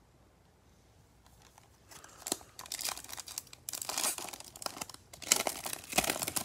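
Foil wrapper of a Topps Chrome baseball card pack being torn open and crinkled by hand, starting about two seconds in and loudest near the end.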